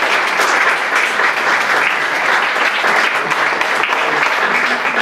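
An audience applauding steadily in a large hall after a speech.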